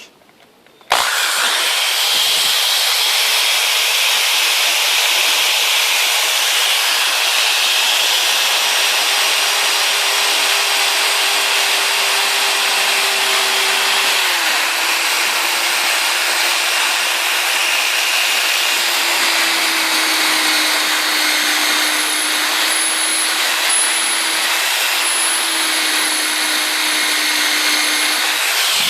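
Electric drill with a thin bit boring into metal plate, starting about a second in and running steadily, its motor pitch dropping slightly in steps as it works. The bit is blunt and burnt, so it cuts slowly.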